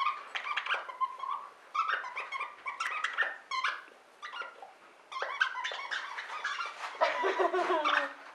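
Squeaker in a plush fox dog toy squeaking over and over as a basset hound chews it, in quick runs of short high squeaks with a quieter pause around the middle.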